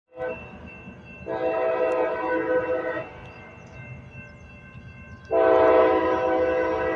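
CSX freight locomotive's air horn sounding a brief toot, then a blast of about two seconds, then another long blast starting near the end, over the low rumble of the passing train.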